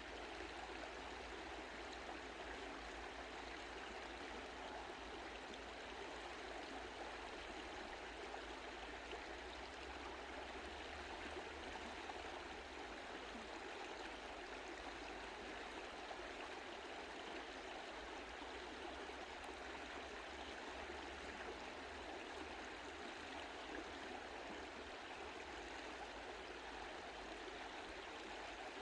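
Mountain stream flowing steadily over rocks: a gentle, even rush of water with no breaks.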